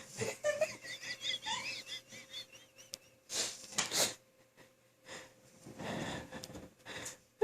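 A sleeping lab mix dog whimpering in a dream: a run of short, high squeaky whines in the first three seconds, then two wheezy breaths about halfway through and a longer, lower breath near the end.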